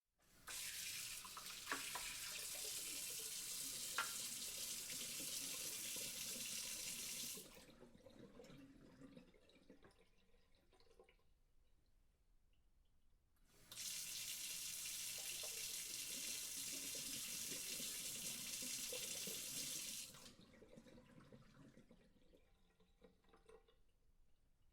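Kitchen sink tap running water into the sink twice, each run about seven seconds and stopping fairly sharply, followed by quieter trickling and draining. Two sharp clicks sound during the first run.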